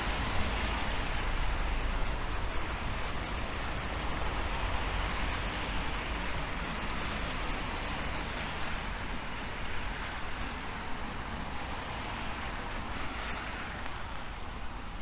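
Steady hiss of a rainy city street: tyres of passing traffic on wet roads and falling rain, over a constant low rumble, easing slightly toward the end.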